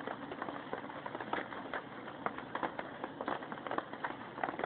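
Irregular clicks and scuffs, several a second, from a black wolf cub and her adult father play-fighting, their paws and claws scraping the ground.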